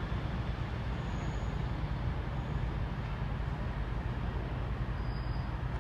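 Class 158 diesel multiple unit's underfloor diesel engines running, a steady low rumble as the train approaches slowly.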